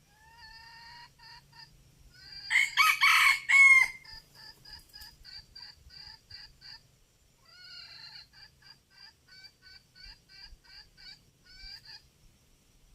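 Junglefowl cock calling: a short series of notes, then one loud crow about two and a half seconds in, followed by long runs of short, even calls at about three a second with a brief break near the middle.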